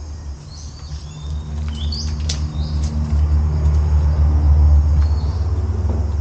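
A motor vehicle's engine droning steadily, growing louder over the first few seconds and easing a little near the end. Birds chirp a few times in the first two seconds.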